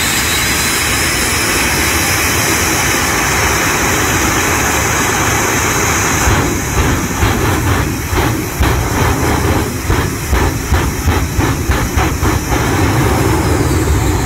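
Jet-powered fire truck's jet engines running at a steady, loud roar. About six seconds in the sound breaks into a rapid series of pulsing bursts, roughly three a second, as flames and fireballs shoot from its stacks, then settles back to the steady roar near the end.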